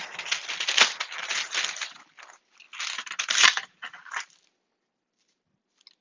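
Loud crinkling and crackling of a pan liner being handled as a sheet pan is readied: a long bout over the first two seconds, a shorter one about three seconds in and a brief bit after four seconds, then little sound.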